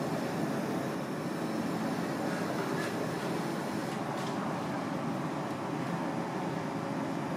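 Steady rushing kitchen background noise, with a couple of faint clicks around the middle.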